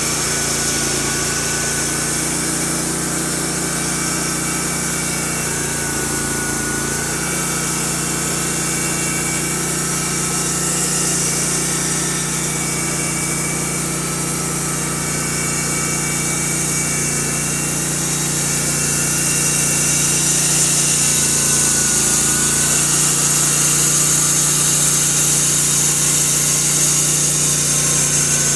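The engine of a Norwood LM2000 portable bandsaw mill running steadily while sawing lumber, with a hiss over the engine note, which dips in pitch briefly twice.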